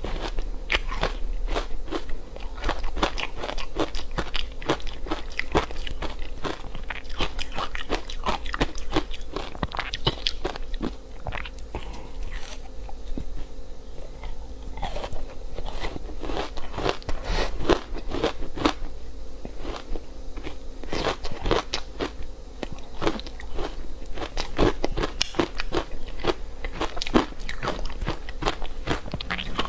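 Close-miked crunching and chewing of frozen matcha-powdered ice: dense, crisp crackling crunches from bite after bite, with a softer stretch about halfway through.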